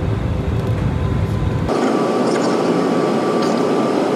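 Jet airliner cabin noise during the landing approach: steady engine and airflow noise. About a second and a half in, the sound changes abruptly: the deep rumble drops away and a brighter rushing noise with a faint steady whine takes over.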